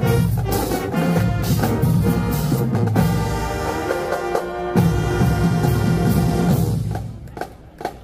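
Marching band playing, brass and drums together on a steady beat. The music stops about seven seconds in and a crowd starts shouting near the end.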